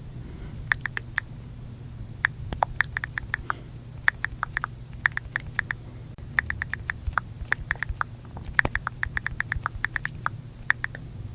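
iPhone on-screen keyboard key clicks: quick runs of several sharp taps with short pauses between them, as in texting, over a faint steady low hum.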